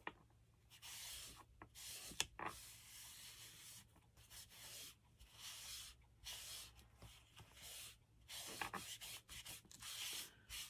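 Faint, intermittent rubbing strokes on paper as glued scrap-paper strips on a book page are rubbed down, with short pauses and a couple of small ticks.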